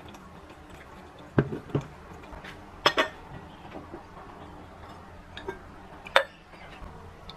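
Dishes and cups being handled and set down: a handful of sharp clinks and knocks spaced a second or more apart, with the loudest about a second and a half, three and six seconds in.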